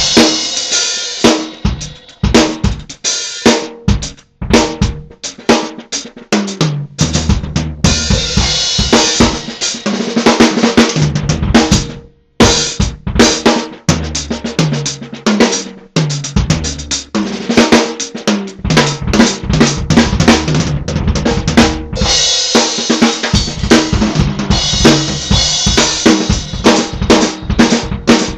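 Sonor S-Class drum kit with Zildjian cymbals played freestyle: fast snare, tom and bass-drum strokes, with stretches of cymbal wash. The playing stops short for a moment about twelve seconds in, then goes on.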